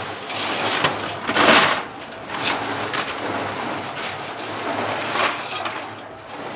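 Small-link metal chain clattering and jingling as it is tipped out of a perforated metal basket into a tray, with louder rushes of rattling about one and a half seconds in and again about five seconds in, over a steady hiss.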